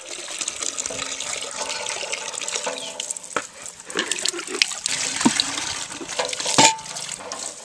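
Water gushing from a hand pump's spout and splashing into steel and plastic buckets, with scattered small knocks and clanks. A louder knock with a brief ring comes near the end.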